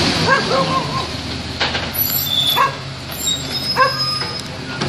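Volvo recycling truck's diesel engine running steadily as the truck pulls away, with a dog yapping in short barks about four times over it.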